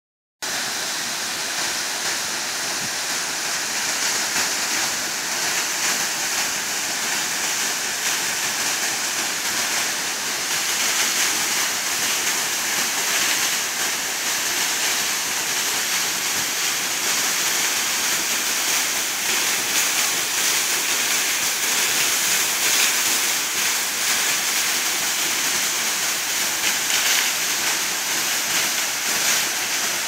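Waterfall: a steady, hissing rush of water falling onto rocks.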